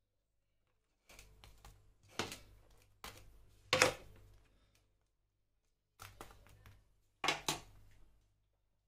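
A table knife scraping and tapping against toasted bread and a wooden tray as a toasted sandwich is pressed together, with crunching toast: four short groups of scraping, the loudest about four seconds in.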